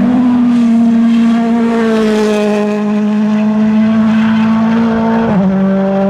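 Ford Fiesta rally car's engine running at high revs as the car drives by at speed. Its note sinks slowly, then drops sharply about five seconds in and carries on lower.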